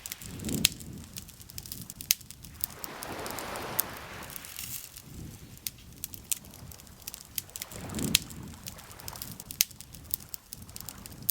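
Campfire crackling with frequent sharp pops, over gentle lake water lapping in slow swells.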